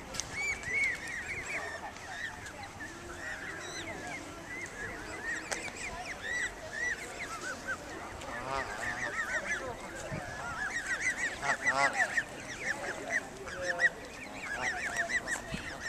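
A family of Canada geese, adults and goslings, calling on and off with many short, overlapping honks and calls.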